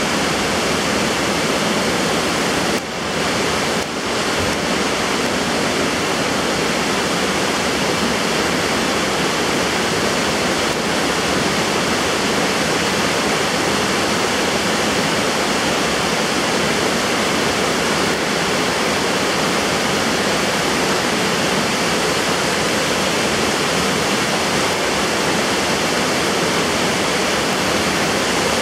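Storm floodwater rushing fast and turbulent across a flooded street and yards: a loud, steady rush of water, briefly dipping twice about three and four seconds in.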